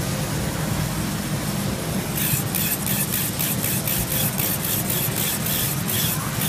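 Electric rotary mink skin trimmer running steadily with a low hum. From about two seconds in it scrapes along the pelt in quick strokes, a hissing scrape about three times a second.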